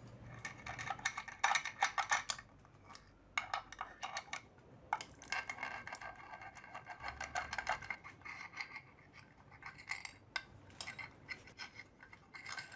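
Honda CBR250R cam chain clinking and rattling against the metal of the cylinder head as it is handled, in several quick bursts of small metallic clicks and scrapes.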